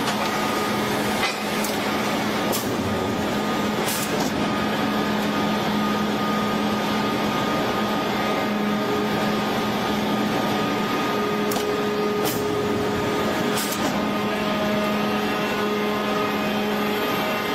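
Steady hum and hiss of heavy forging-plant machinery, with a constant low drone and a few light clicks along the way.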